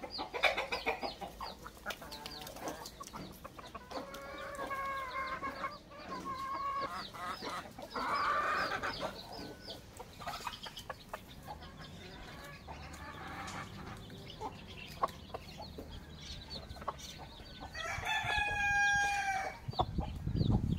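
Chickens calling: chicks peep again and again, and hens cluck on and off. Near the end a rooster crows once, loud and about a second and a half long.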